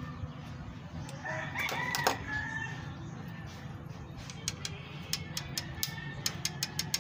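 A rooster crowing once, about a second in, followed near the end by a quick run of sharp clicks.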